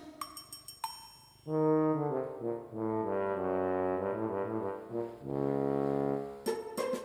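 Background music: a few thin, ringing chime-like notes, then from about a second and a half in, slow held brass notes in low chords, like trombone or horn.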